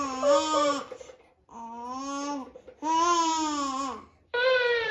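A baby vocalizing in four drawn-out, sing-song calls, each about a second long, with short pauses between.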